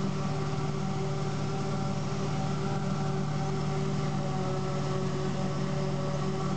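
Self-propelled forage harvester chopping standing maize, its engine and chopper a steady drone with a constant hum, mixed with the tractor and trailer running alongside it.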